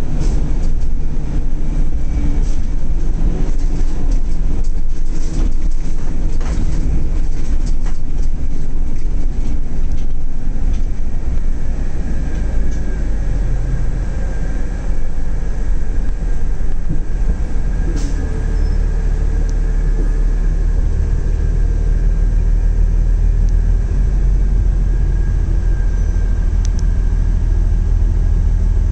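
Inside a Zhong Tong LCK6107H coach on the move: a steady low engine and road drone, with clicks and knocks from the cabin over the first ten seconds or so. A thin high whine joins about twelve seconds in.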